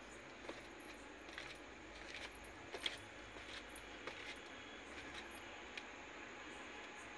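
Faint, irregular light clicks and ticks over a steady hiss, with one sharper click about three seconds in.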